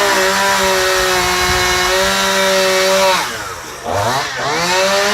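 Two-stroke chainsaw held at full throttle for about three seconds, then let back to idle and revved up again twice in quick succession near the end.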